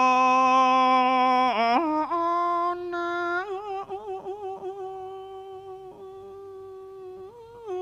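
A male monk's voice chanting a drawn-out melodic blessing in Northern Thai, stretching the syllables into long sung notes. A loud held note swoops at about two seconds into a higher, softer note with wavering ornaments that gradually fades.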